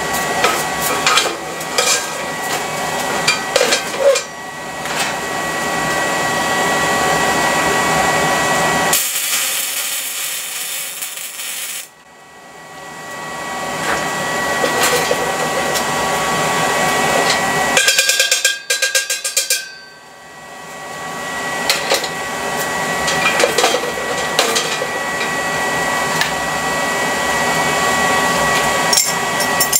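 Electric welding arc crackling and sizzling steadily while a bead is run on a steel tank. It breaks off briefly twice, about a third and about two thirds of the way through.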